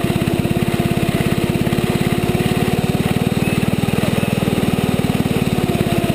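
Small youth snowmobile's engine running steadily at low speed, with a rapid, even firing beat.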